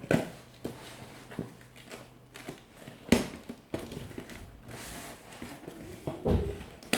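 Goods being handled during unpacking: a few sharp knocks as items are put down, at the start, about three seconds in and near the end, with light rustling of packaging between them.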